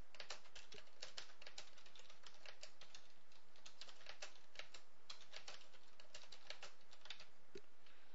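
Typing on a computer keyboard: a quick, irregular run of key clicks as a sentence is typed out.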